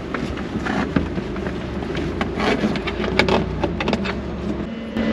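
Outdoor parking-area ambience on an in-car camera: wind buffeting the microphone over a steady low vehicle rumble, with scattered knocks and clicks as the occupants climb out of the open-top car.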